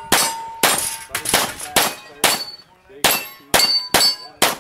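Rapid pistol fire in a practical shooting stage: about a dozen sharp shots in quick strings, some spaced a quarter to half a second apart and some in fast pairs. Several shots are followed by a brief metallic ring from steel targets being hit.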